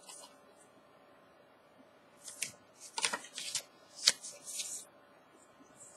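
Paper cards and tags being shuffled and handled by hand: a cluster of short, crisp rustles and taps between about two and five seconds in, the sharpest about four seconds in.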